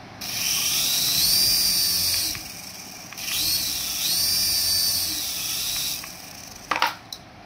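Small toy RC helicopter's electric motors spinning its coaxial rotors, a high whine with blade whir, run twice: about two seconds, a short break, then about three seconds, each rising in pitch as it spins up and falling as it spins down. A couple of short knocks near the end.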